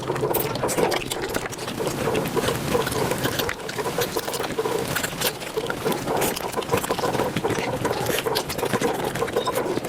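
Mukbang eating sounds played back at high speed: a dense, unbroken run of rapid chewing clicks and mouth smacks.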